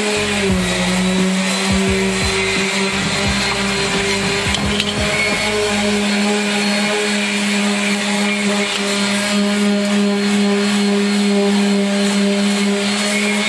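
Electric power tool motor running steadily at a constant high speed, with a hum that holds one pitch.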